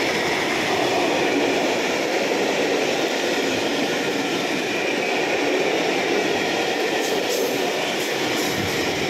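A freight train's open wagons rolling past close by at speed: a loud, steady rumble of wheels on the rails, with a few clicks about seven to eight seconds in.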